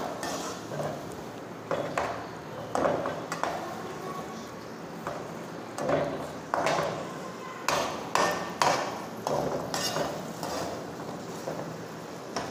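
Perforated metal skimmer stirring tomatoes and spice masala in a metal pot, knocking and scraping against the pot's sides at irregular intervals of about a second.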